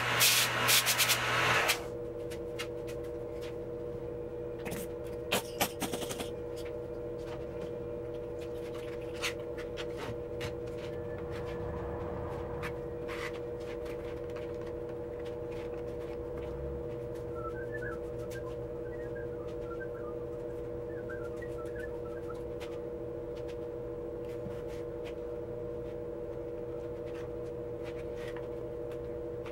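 A steady hum with several held pitches, the background drone of a workshop. A loud rushing noise stops about two seconds in. Light taps and scrapes follow as glue is spread by hand with a scraper.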